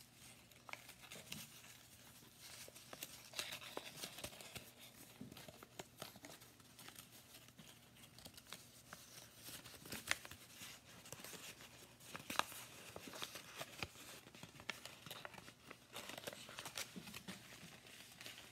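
Paper rustling faintly as a square sheet is folded by hand and one flap is tucked into another, with scattered small crackles and a few sharper ones about ten and twelve seconds in.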